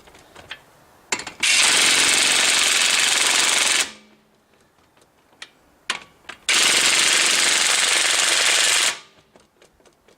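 Ridgid 18V brushless half-inch impact wrench hammering on a fastener in two bursts of about two and a half seconds each, with small clicks before, between and after them.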